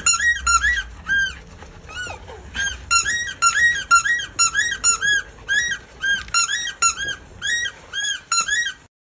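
Repeated high squeaks, about two or three a second, each one rising and then falling in pitch, which cut off suddenly near the end.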